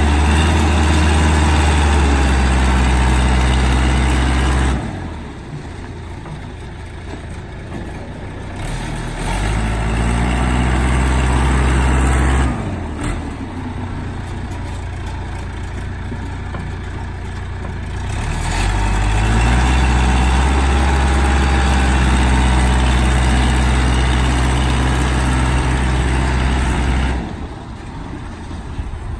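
John Deere 210C backhoe's diesel engine repeatedly revving up, holding at high revs for several seconds, then dropping back to idle, three times in a row.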